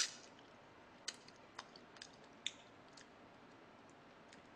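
Close-up eating sounds: a sharp smack right at the start, then a handful of faint clicks over the next two seconds as meat is gnawed and picked off a pork bone from gamjatang.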